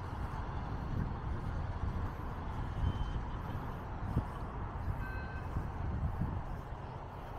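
Steady outdoor background noise, a low rumble with hiss above it, with a short high beep about five seconds in.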